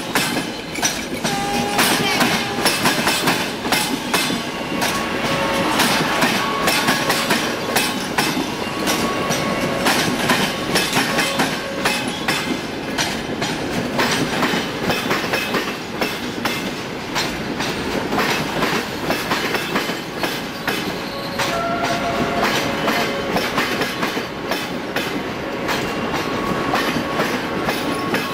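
Train wheels rolling at low speed over rail joints and points, a dense, irregular clatter of clicks, with several short wheel squeals early on and again near the end.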